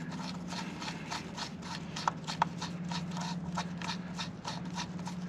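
Torx screwdriver driving and tightening the coil-pack mounting screws: a quick run of small clicks, about five a second, with two sharper clicks a little after two seconds, over a steady low hum.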